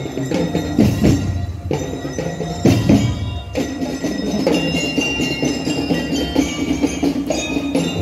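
Marching band music: drums keeping a beat, with a bell-like melody ringing above.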